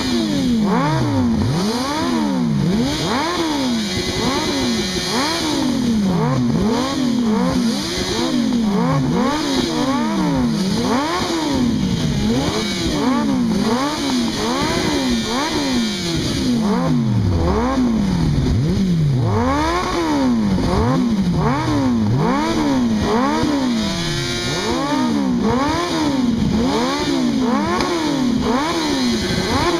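A vehicle engine revved hard again and again, its pitch climbing and dropping quickly about once a second, now and then held steady at the top for a moment before dropping.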